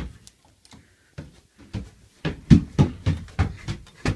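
Handling noise: a knock and a few faint clicks, then from about a second in a quickening run of short knocks and clicks, loudest near the end.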